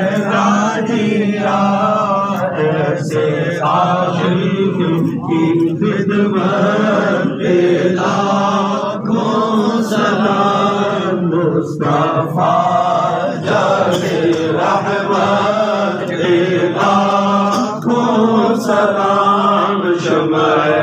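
A crowd of men chanting in repeated phrases, voices rising and falling without a break.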